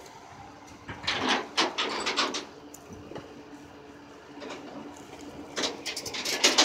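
Rollback flatbed tow truck unloading a pickup: a faint steady hum of the tow truck running, with clusters of metal clanks and rattles from the bed and winch about a second in and again near the end.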